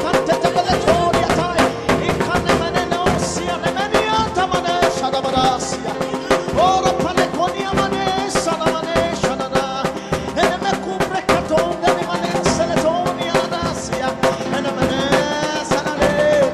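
Worship music with a drum kit and other instruments, and a voice singing over them.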